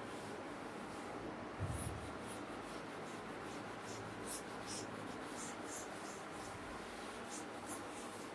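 A cloth wiping chalk off a chalkboard: faint, irregular rubbing strokes, with one dull thump about a second and a half in.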